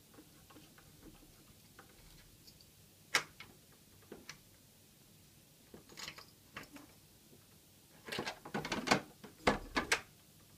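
Plastic cat flap worked by a cat pushing through it: a few single clicks, then a rapid run of loud clacks near the end as the flap swings back and forth and settles shut.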